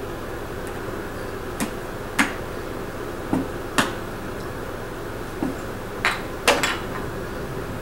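Wooden stacking-toy rings and peg knocking together in a scatter of about eight sharp clacks, over a steady low background hum.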